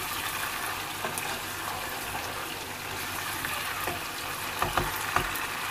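Lamb and potato curry sizzling in a frying pan, being fried in its own separated oil, the sign that the cooking water has dried off. A spatula stirs it, with a few sharp knocks against the pan about a second in and again near the end.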